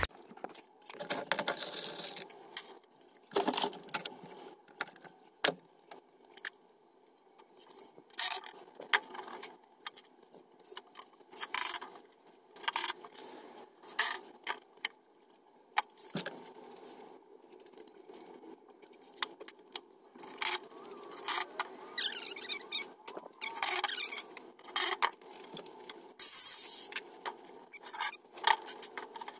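Irregular light clicks, clinks and scrapes of things being handled, coming in scattered clusters with short quiet gaps between them.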